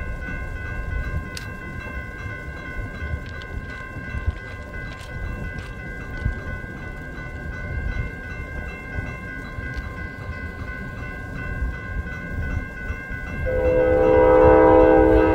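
Railroad grade-crossing warning bell ringing steadily over a low rumble. About a second and a half before the end, the approaching Norfolk Southern freight locomotive's air horn starts blowing, a loud multi-note chord that is the loudest sound here.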